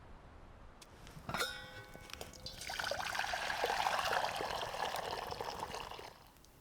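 A sharp metallic clink that rings briefly, then liquid pouring steadily for about three and a half seconds before stopping.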